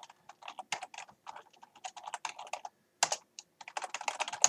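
Typing on a computer keyboard: a run of separate key clicks as a terminal command is typed, then a faster burst of keystrokes near the end, closing with one louder key press.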